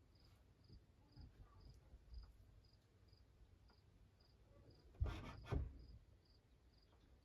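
Faint, evenly spaced high insect chirps, about two a second, with two knocks about five seconds in.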